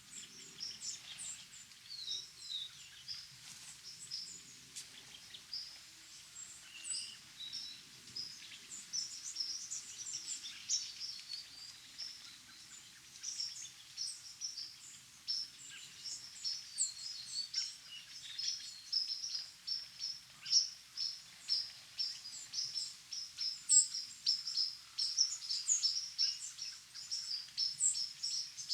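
Small birds chirping and singing, many short, high calls overlapping, busier and louder in the second half.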